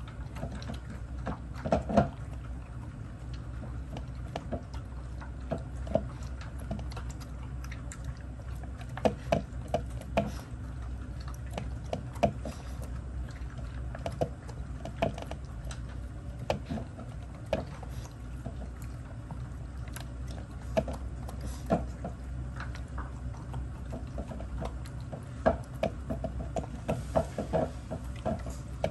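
Shih Tzus eating dry kibble: irregular crunches and small clicks of kibble against the bowls, with a few quick clusters.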